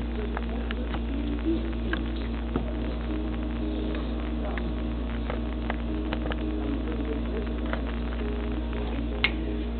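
Steady low electrical hum, with scattered faint clicks and one sharper click near the end.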